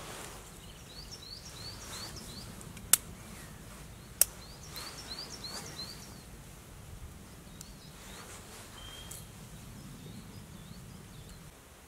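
Dry sticks knocking against each other as they are set into a teepee fire lay: two sharp clicks a little over a second apart, about three seconds in. Behind them, a small bird sings runs of short, quickly repeated high chirps.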